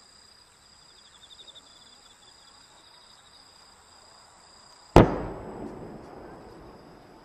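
One loud boom from a large aerial firework shell about five seconds in, echoing and dying away over a couple of seconds. Insects chirp steadily in the background before it.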